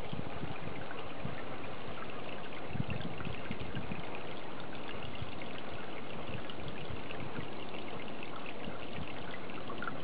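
Steady trickling of running water into a garden pond, with a few soft low bumps about three seconds in.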